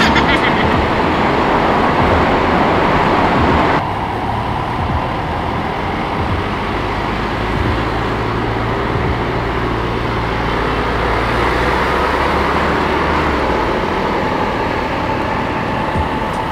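Motorcycle riding in city traffic: a steady rush of wind and road noise over the microphone, with the engine's low hum underneath. The rushing noise drops suddenly about four seconds in.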